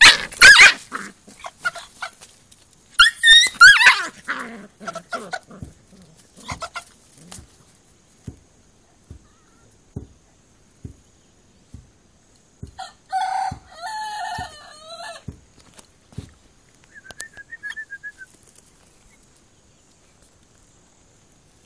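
A rooster squawking shrilly twice in the first few seconds as a puppy grabs at it, then light scuffling ticks, and another run of calls about thirteen seconds in.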